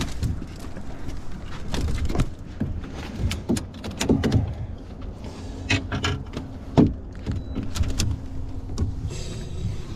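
Scattered knocks, clicks and clatters of fishing gear handled in an aluminium boat as a landed pompano is unhooked and put in the cooler, with a low wind rumble on the microphone. The sharpest knocks come a little after four seconds and again near seven seconds.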